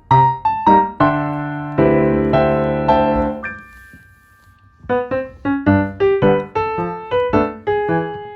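Background piano music: quick separate notes, then a few held chords, a short pause about four seconds in, and quick light notes again.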